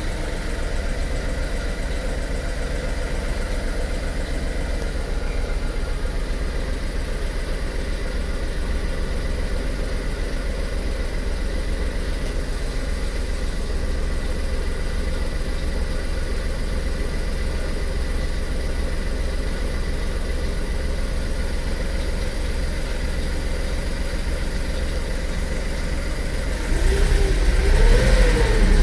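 Car engine idling steadily, with one short rev near the end that rises and falls back.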